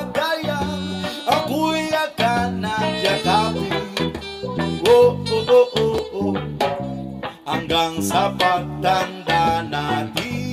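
Background music: a plucked guitar melody with bending notes over a stepping bass line.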